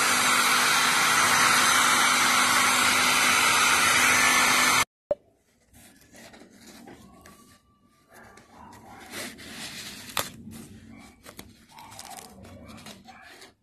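Electric hot-air dryer blowing steadily with a low hum, drying a freshly glued and sewn fabric repair; it cuts off suddenly about five seconds in. After that, faint rustling and handling of the fabric cover and foam.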